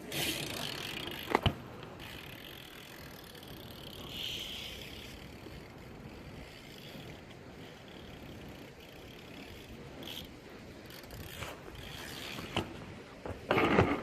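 BMX bike being ridden, its tyres rolling on the ground, with two sharp knocks about a second and a half in, a few lighter clicks later and a louder clatter near the end.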